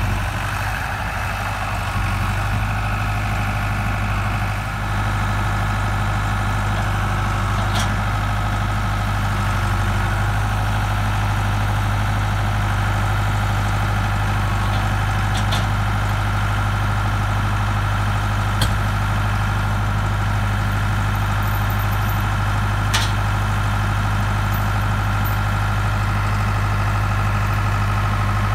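Farm tractor engine running steadily at an even pitch, with a few brief sharp ticks over it.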